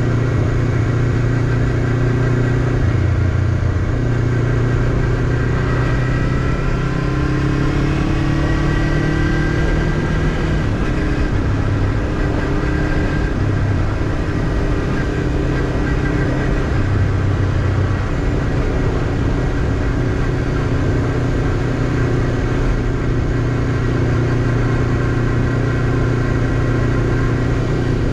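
Honda CBF500's parallel-twin engine running steadily while riding at a cruise, its pitch rising and falling slightly with small throttle changes, over a constant rushing noise.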